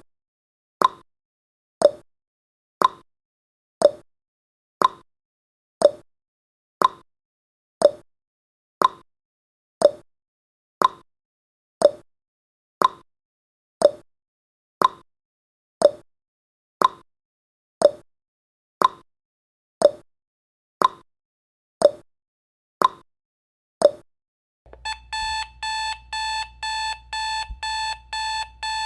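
Countdown timer sound effect: a clock-like tick once a second, then, about 24 seconds in, the timer runs out and a loud alarm beeping in quick repeated pulses takes over.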